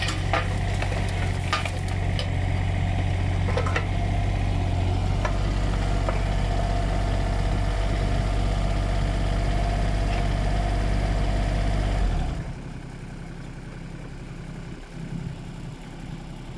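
Diesel engine of a Volvo mini excavator running while its bucket tips gravel into a trailer, with clatter of stones in the first few seconds and a steady hydraulic whine as the arm works. The engine is shut off about twelve seconds in.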